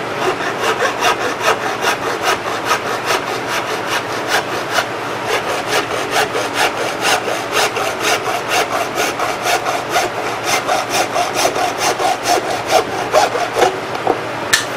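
Hacksaw blade cutting through 4-inch schedule 40 PVC pipe by hand, a steady back-and-forth rasp at about three strokes a second that stops just before the end.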